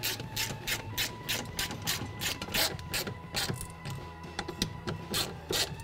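Hand ratchet with a socket clicking in a quick, even rhythm, about three or four clicks a second, as a bolt is run in. The clicking pauses about two-thirds of the way through and comes back briefly near the end.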